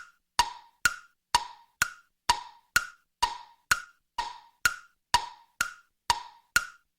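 Wood-block ticks at a steady pace of about two a second, alternating between a higher and a lower note in a tick-tock pattern.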